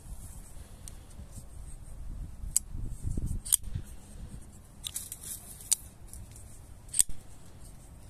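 Sixleaf SL-14 folding knife being flicked open and closed, giving about four sharp metallic clicks of the blade snapping into place, the loudest near the end, with a brief rustle of handling between them.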